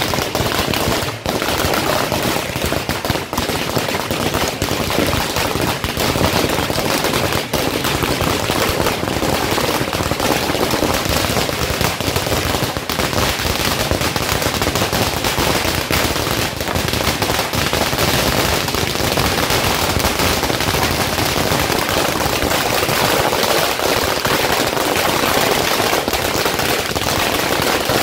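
Long runs of firecrackers laid out on the ground, bursting in a rapid, unbroken crackle of sharp bangs like machine-gun fire.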